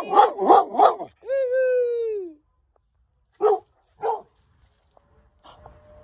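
An American bulldog barking excitedly: a quick run of about four yelps, then one long cry falling in pitch, then two single barks spaced well apart.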